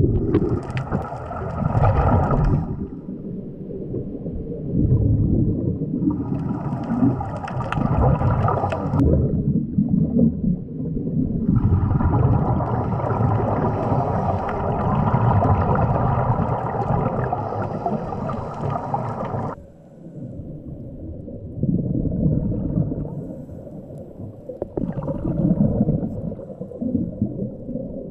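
Muffled underwater noise picked up through an action camera's housing: a continuous low rumble of water and bubbles, with three stretches of a steady whine, the longest lasting about eight seconds and cutting off sharply.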